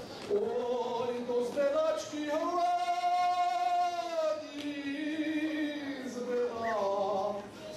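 A man sings a Slovak folk song solo, with no accompaniment. About two seconds in he holds one long high note with a slight vibrato for about two seconds, then the melody steps down.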